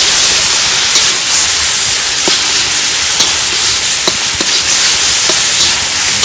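Spice paste frying in oil in a wok on high heat: a loud, steady sizzle, with a few light clicks from stirring.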